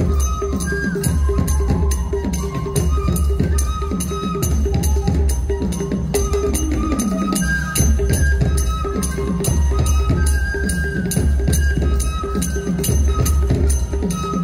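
Assamese folk orchestra playing: hand drums beat a steady rhythm while a bamboo flute plays a melody of held notes above them.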